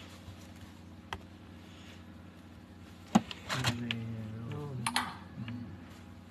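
Small clicks and taps of parts and tools being handled while a phone's charging-port board is fitted, with one sharp click about three seconds in. A brief low murmur follows.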